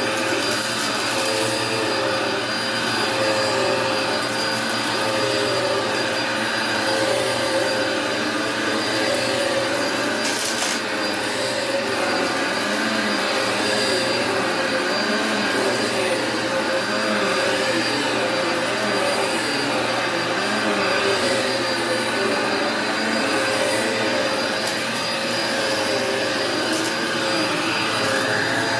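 Vacuum cleaner running steadily on carpet, a continuous motor hum and whine with a steady tone and no breaks.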